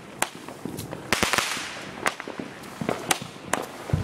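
Fireworks going off: a rapid, irregular string of sharp bangs and pops, several of them loud, each trailing off in a crackling hiss.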